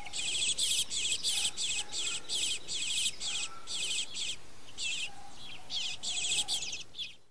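Eastern bluebird fledgling giving begging calls: short, raspy, warbling high notes repeated about two to three times a second, spacing out after the middle and stopping just before the end.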